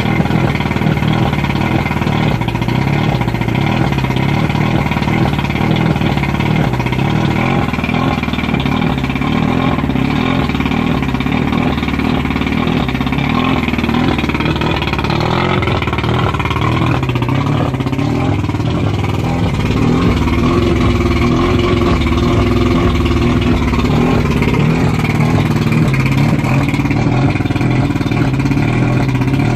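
1989 Mercury 100 two-stroke outboard motor, cowling off, running steadily at a fast idle of roughly 1200 to 1400 rpm; it gets a little louder about two-thirds of the way in.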